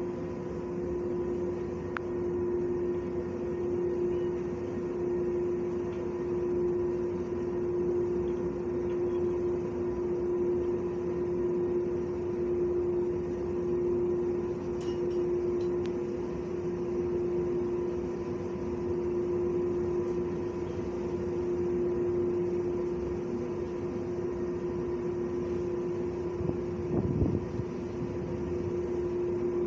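Steady mechanical hum with one constant droning tone, as from running machinery; a brief louder low sound near the end.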